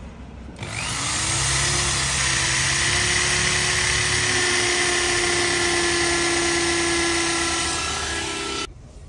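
Electric drill running for about eight seconds, spinning up with a rising whine just after the start, holding a steady pitch, then cutting off suddenly near the end: drilling a hole on a car for a rear camera fitting.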